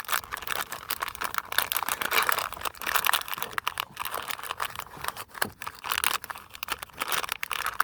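Plastic Ziploc bag crinkling and crackling as it is folded over and pushed into a notch, an irregular run of sharp crackles.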